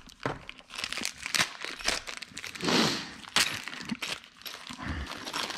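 Plastic packaging crinkling and rustling as parts of a rolling stool are unwrapped, with scattered clicks and light knocks; the loudest rustle comes about three seconds in.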